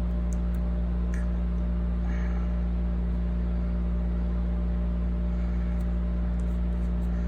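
A steady low electrical hum with a faint hiss, unchanging throughout, with a few faint light ticks.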